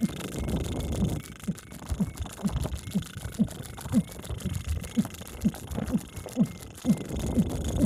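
Deep drum beats at a steady pace of about two a second, each stroke dropping in pitch, over a low rumble that is loudest in the first second.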